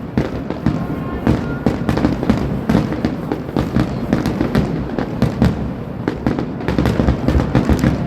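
Fireworks bursting in quick succession: many bangs and crackles close together, with strong deep booms underneath.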